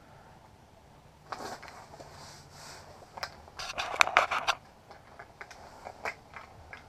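Handling noises on the ice: a soft rustle about a second in, then a quick cluster of sharp clicks and knocks around the middle and one more click near the end.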